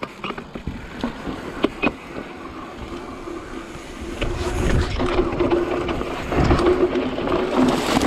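Trek Slash mountain bike rolling over a dirt trail: tyres on dirt and roots, with the chain and frame rattling and knocking. About four seconds in it gets louder, with wind rumbling on the helmet camera as the bike picks up speed.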